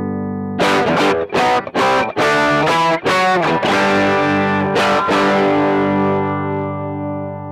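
Electric guitar played through distortion: a held chord dies away, then a quick run of short, choppy chord hits, ending on chords left to ring and slowly fade.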